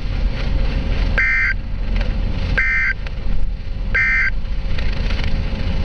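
Three short bursts of Emergency Alert System SAME data tones, a buzzy warble about a second and a half apart: the end-of-message code that closes the alert. Steady radio hiss and hum lie under them.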